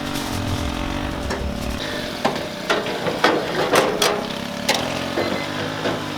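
A steady engine-like mechanical hum throughout, with a run of sharp clicks and clattering knocks from about two to five seconds in, typical of metal being handled at the smoker.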